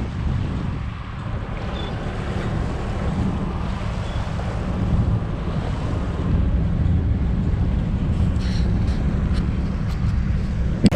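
Sailboat's engine running steadily as the boat motors along, a low even drone under gusty wind buffeting the microphone.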